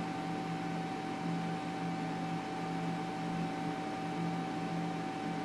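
Steady hiss with a constant electrical hum of a few fixed tones, unchanging throughout; no other distinct sound.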